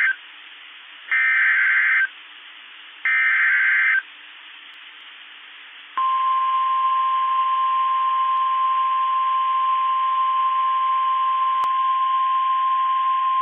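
NOAA Weather Radio emergency alert header: the tail of one screeching data burst and then two more, each about a second long and a second apart. About six seconds in, the steady single-pitch 1050 Hz warning alarm tone starts and holds. Together they signal an incoming weather warning broadcast.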